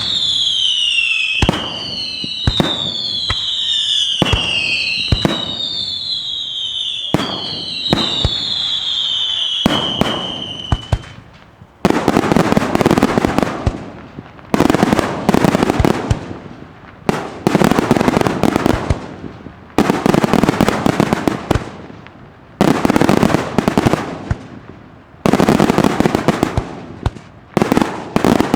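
Aerial fireworks display: sharp bangs among a run of shrill whistles, each falling in pitch, repeating about once a second; then, about twelve seconds in, whistles give way to a series of dense crackling salvos, each starting suddenly and dying away, roughly every two to three seconds.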